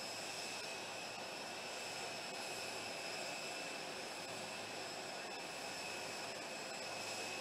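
Steady jet turbine whine: a constant rushing noise with several high, unchanging whistling tones over it.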